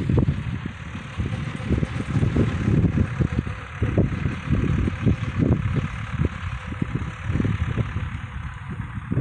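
Wind buffeting the microphone in uneven gusts, over the steady running of a distant John Deere 2120 tractor's diesel engine driving a PZ 165 rotary disc mower.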